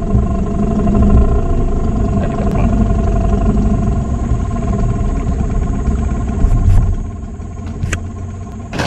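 Small boat's outboard motor running steadily under way, easing off about seven seconds in.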